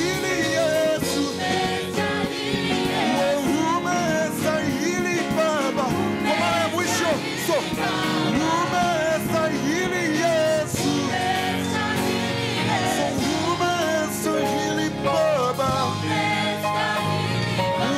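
Live gospel worship music: voices singing with a choir over a band, with drums keeping a steady beat.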